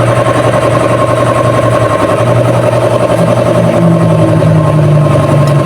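A motor running steadily with a low hum that steps up in pitch about three and a half seconds in.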